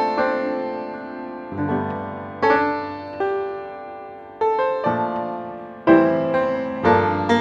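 Slow solo piano music: chords struck about once a second, each ringing and fading before the next.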